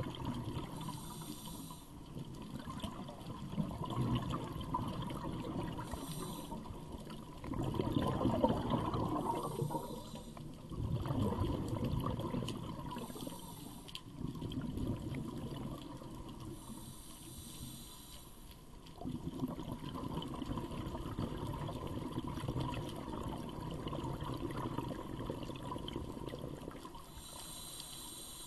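Scuba divers breathing underwater through their regulators, with bubbling, gurgling rushes of exhaled bubbles that come and go every few seconds.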